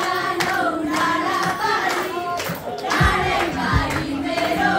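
A song with a group of voices singing over music marked by sharp beats; a deep drum beat joins about three seconds in.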